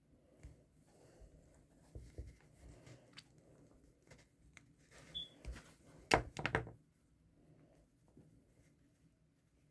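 Objects being handled close to the microphone: soft rustles and light knocks, with a quick run of sharp clicks about six seconds in.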